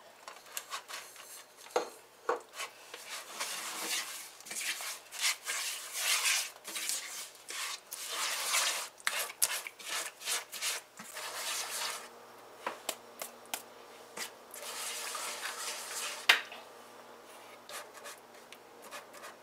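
Silicone spatula stirring and scraping brown sugar and melting margarine around a nonstick pan in quick, irregular strokes, with a few sharper knocks against the pan, one loud knock about 16 seconds in. The sugar is being melted into the margarine for a caramel-style flan glaze.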